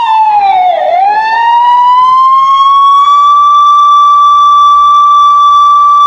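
Police car siren wailing loudly. Its pitch dips sharply about a second in, climbs back slowly, and then holds on one steady high tone.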